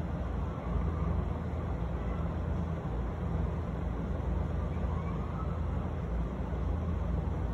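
Steady low rumble of distant city traffic and engines; the fireworks make no distinct bangs.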